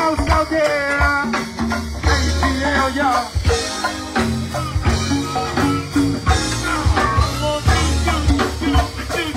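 Live go-go band playing: vocals over electric bass, drum kit and percussion, with a steady driving beat.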